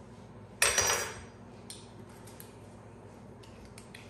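A short clatter of a metal spoon against a ceramic mixing bowl about half a second in, then a few light clicks as the cap of a small salt container is handled and put back on.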